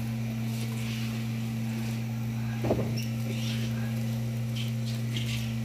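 Steady low hum, with one short metallic clink about two and a half seconds in.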